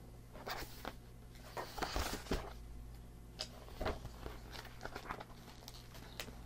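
A paperback picture book being opened and handled: soft rustles and flaps of the cover and pages, heaviest about two seconds in, with a few scattered light taps and rustles afterwards.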